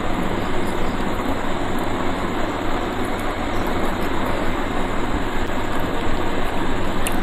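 Steady rushing background noise, even and unbroken, with no clear pitch or rhythm.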